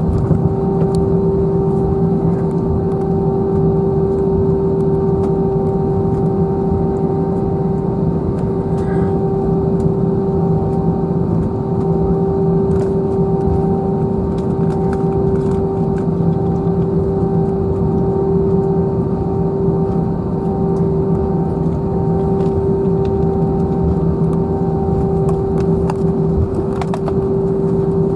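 Steady cabin noise inside an Airbus A321, its CFM56 engines running at low, even power with a constant hum over a low rush of air, and a few faint clicks.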